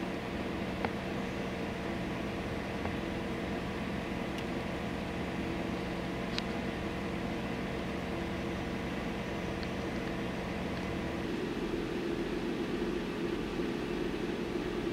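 Steady mechanical drone of idling engines and machinery, with a couple of faint clicks; the hum turns slightly deeper and louder about eleven seconds in.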